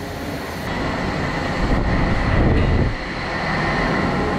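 Vehicle noise: a steady rushing sound with a low rumble that swells between about one and a half and three seconds in.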